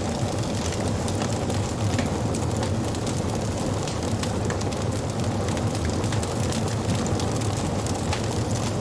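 Wood fire crackling: frequent small sharp pops and snaps over a steady low rumble of burning.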